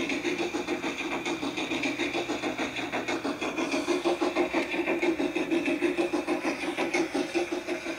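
The built-in Dietz sound module of a G-scale D&RGW C-16 2-8-0 model steam locomotive playing rapid, even steam-exhaust chuffs through its small loudspeaker as the locomotive runs.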